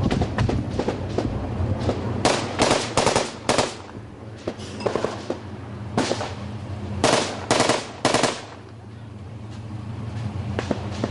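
Bursts of automatic gunfire: a fast rattle of shots at first, then several louder volleys about two, five, six and seven to eight seconds in, easing off near the end, over a steady low hum.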